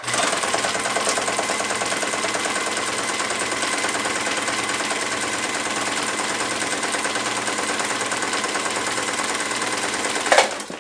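Sewing machine running at a steady speed, its needle punching stitch holes through a sheet of paper for a stitches-per-minute speed test. It starts abruptly and stops near the end with a sharp click.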